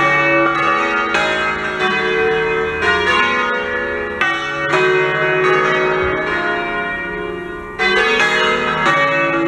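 A peal of six bronze church bells tuned to D-flat, cast by Fratelli Ottolina in 1928, swing-ringing together in a full 'distesa', their strokes overlapping into a continuous clangour. The ringing thins for a moment about six seconds in, then strong strokes return near the end.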